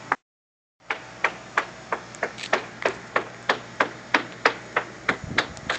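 Steady run of sharp, evenly spaced taps, about three a second. The sound cuts out for about half a second near the start.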